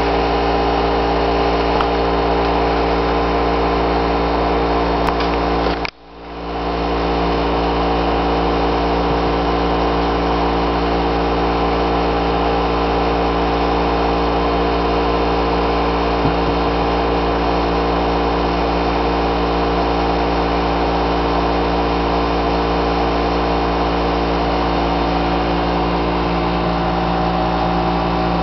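A loud, steady mechanical hum at a constant pitch, like a running motor or fan, that dips sharply for a moment about six seconds in and then comes back.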